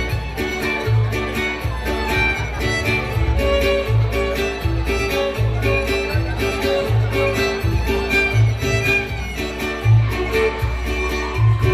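A string band playing a lively instrumental tune: a violin carries the melody over evenly strummed chords and a bass that marks a steady beat.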